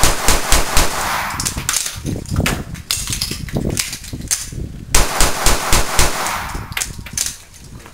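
Caracal 9x19 pistol fired in quick strings of shots, with a pause of about a second partway through before the shots resume.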